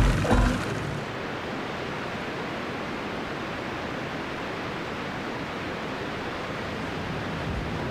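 Steady sea ambience: an even hiss of surf and open water. A louder sound with a low hum cuts off about half a second in, just before it.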